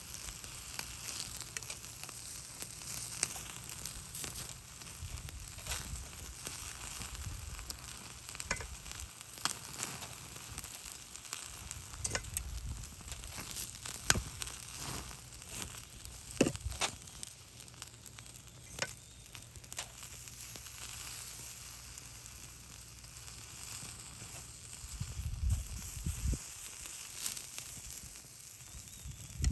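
Food sizzling over a charcoal grill: a steady frying hiss broken by frequent sharp crackles and pops.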